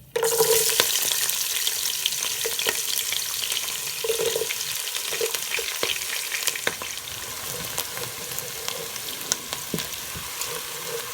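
Onions hitting hot oil and ghee with whole spices and sizzling. The sizzle starts suddenly with a loud hiss, then runs on steadily with many small crackles.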